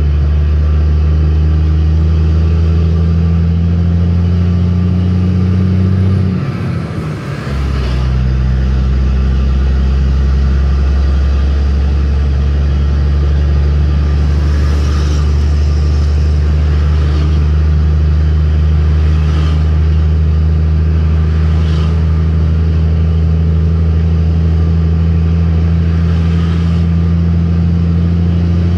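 Mercedes-Benz Axor 1933 truck's straight-six diesel engine droning steadily under way, heard from inside the cab. About six seconds in the drone breaks off for a moment and comes back at a lower pitch, as with a gear change.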